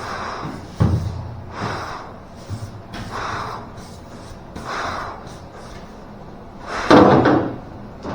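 Sandpaper on car body panels: rhythmic sanding strokes, a rasping swish about every second and a half, with a sharp thump about a second in.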